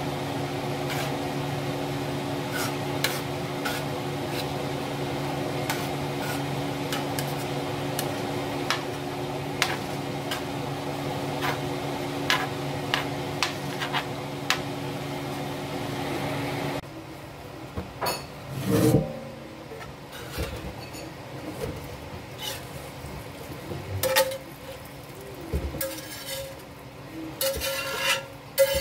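Ground beef sizzling in a cast-iron skillet as a metal spatula stirs and scrapes it, with frequent sharp clicks over a steady hum. About seventeen seconds in it turns quieter, with scattered knocks, clinks and scrapes as the skillet is tipped and the meat is scraped into a metal colander.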